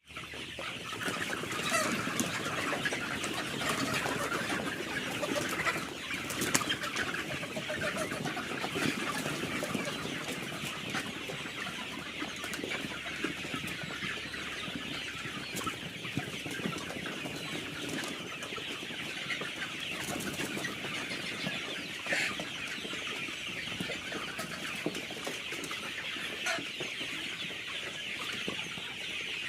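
A flock of 56-day-old Sonali chickens clucking and chirping in a continuous, overlapping chorus, with scattered short clicks and flutters among them.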